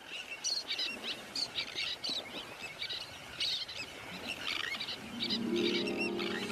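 Sandwich tern colony calling: short, high calls from adults and chicks, several a second and overlapping. Soft music fades in near the end.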